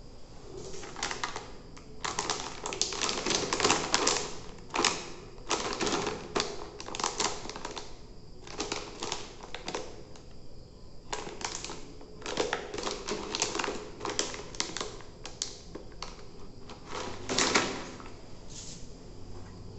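Crinkling of a shiny plastic snack packet handled by hand: irregular bursts of crackling, the loudest near the end.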